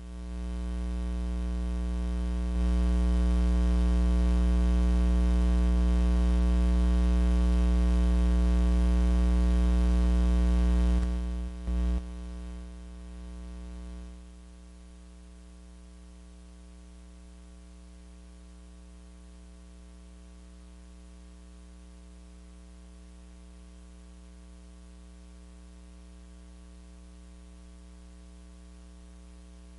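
Electrical mains hum with a buzzy stack of overtones. It is loud for about eleven seconds, cuts in and out briefly around twelve seconds in, then drops at about fourteen seconds to a fainter steady hum.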